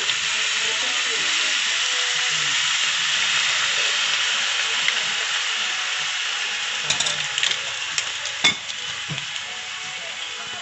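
Chicken pieces sizzling and frying in a metal wok, loud just after soy sauce is poured in, then slowly dying down. A few sharp metal clinks come near the end.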